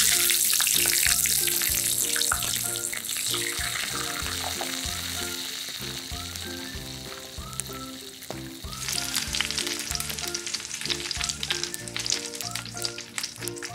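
Mantis shrimp dropped into hot oil in a small wok set off a loud sizzle of deep-frying that slowly dies down. About nine seconds in, the frying picks up again with sharp crackling and popping.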